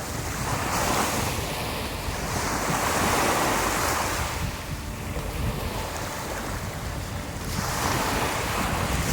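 Surf breaking and washing up a sandy beach, the rush swelling about a second in and again near the end, with wind buffeting the microphone.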